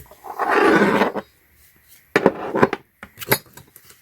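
Racing harness being handled: a burst of strap rustling, then several sharp metal clinks and knocks from its buckle and adjuster hardware.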